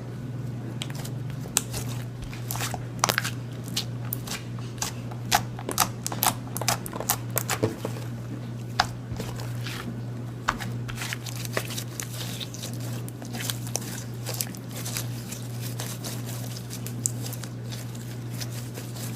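Sticky slime being squished and worked by hand, making scattered sharp pops and clicks, most of them in the first half, over a steady low hum.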